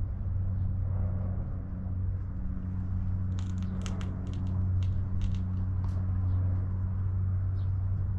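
Steady low hum of an idling engine, with a run of sharp clicks and crackles partway through.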